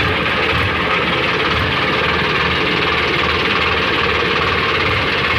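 Sonalika tractor's diesel engine running steadily as the tractor drives along, heard loud from the driver's seat close behind the engine.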